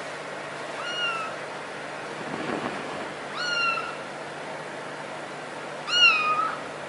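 Young kitten mewing three times, short high-pitched mews about two and a half seconds apart, each rising then falling slightly; the last is the loudest.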